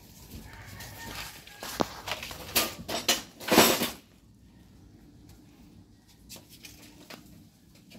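A run of sharp metal clicks and knocks with a scrape, from hand tools working on the car's underside during fuel tank removal. It is loudest about three and a half seconds in and stops at about four seconds, leaving only a faint steady background.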